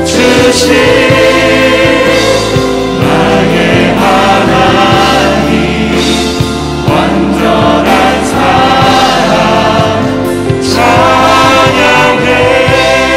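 Praise team of male and female voices singing a Korean worship song together, backed by acoustic guitar and keyboard.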